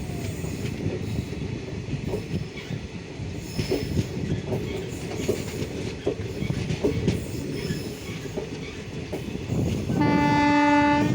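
Passenger train running slowly, its wheels clattering and creaking over the rails. About ten seconds in, a train horn sounds one steady blast.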